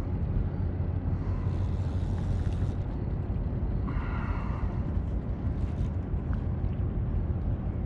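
Steady low rumble of wind buffeting the microphone, with a brief higher whirring sound about four seconds in.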